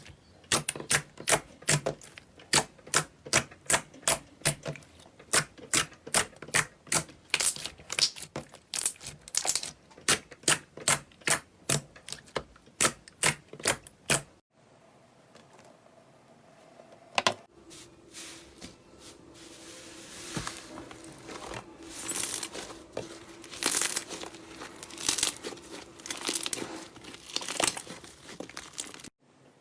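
Slime being squeezed and kneaded, giving sharp clicking pops about three times a second. After a sudden break about halfway, softer, irregular squishing and crinkling follows.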